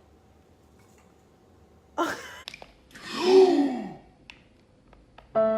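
A person's breathy, wordless vocal exclamation, one drawn-out sound that rises and falls in pitch, about three seconds in, after a short sharp vocal sound at about two seconds. Music with bowed strings comes in near the end.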